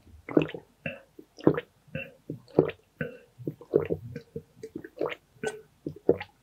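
A person gulping water from a glass, close to the microphone: a steady run of swallows, roughly one every half second.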